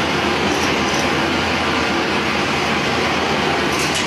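Steady rushing noise of a motor-driven machine or fan running, with a few light metal clinks near the end as a bolted metal plate is handled.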